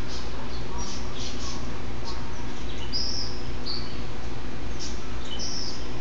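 Birds chirping: short high chirps come every second or so, some with a quick downward slide, over a steady low hum.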